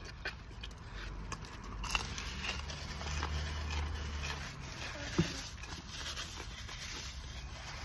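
A person chewing a bite of pizza with a crisp crust: soft crunching and mouth clicks over a low rumble that swells in the middle.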